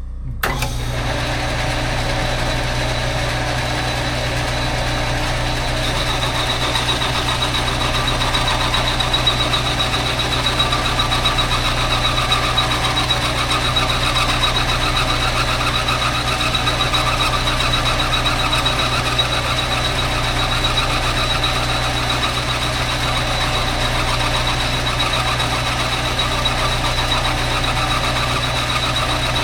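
Metal lathe starting up about half a second in and running steadily, boring out a motorcycle cylinder to size. A steady high whine comes in about six seconds in.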